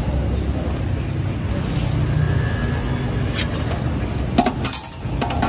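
Steady low rumble of city street traffic, with a few sharp clicks and knocks about four and a half seconds in.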